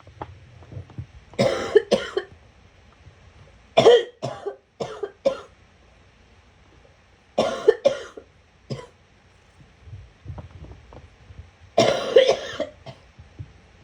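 A person's gagging cough: four fits of several hard coughs each, the fits a few seconds apart.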